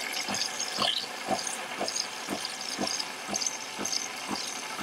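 De'Longhi Nespresso Lattissima Touch frothing and dispensing hot milk from its automatic cappuccino system into a mug: a steady hiss with a regular pulsing about twice a second.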